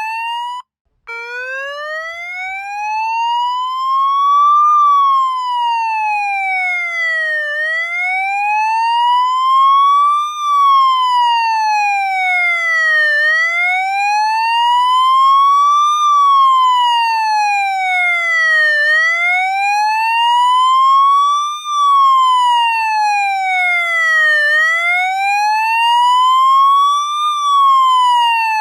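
Police siren in wail mode: one tone slowly rising and falling, a full sweep about every five and a half seconds. The sound cuts out for an instant about a second in, then resumes low.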